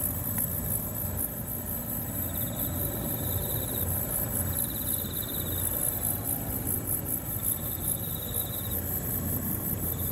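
Insects chirping: a steady, fast-pulsing high chorus with three separate trills, each about a second and a half long, over a low rumble.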